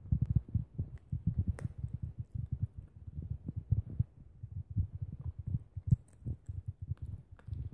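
Maltese dog chewing a chicken-strip treat close to the microphone: an irregular run of soft low thuds, several a second, with a few sharper crunches.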